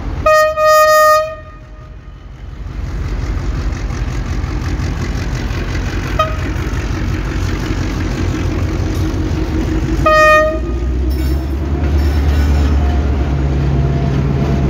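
Horn of a J26 CW/AC diesel locomotive sounding one steady note, a short blast then a longer one right at the start, a brief toot about six seconds in and another short blast about ten seconds in. Underneath, the diesel engine and the passenger coaches rumble on the rails, growing louder near the end as the train passes close by.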